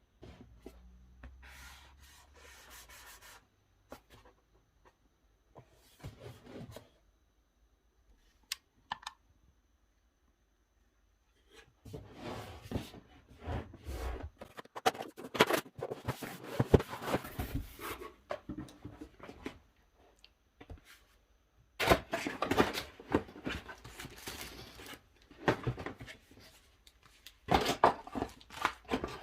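Unboxing a robot vacuum: cardboard and plastic packaging rubbed, scraped and torn open in irregular bursts of rustling, with a few sharp clicks and quiet pauses between.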